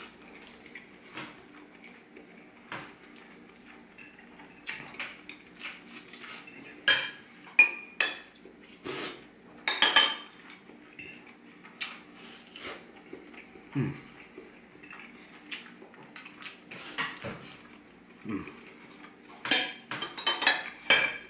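Metal fork and spoon clinking and scraping against a white ceramic plate and a glass soup bowl in scattered taps, with the sharpest clinks about seven to ten seconds in and again near the end.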